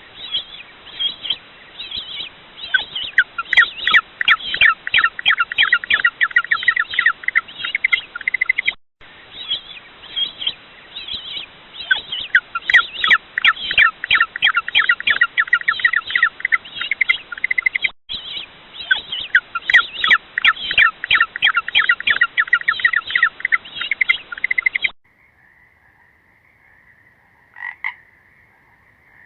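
A frog calling in fast trains of rattling croaks. The same call comes in three similar bouts of about nine seconds each. Near the end it gives way to a faint steady high trill, with one short louder call.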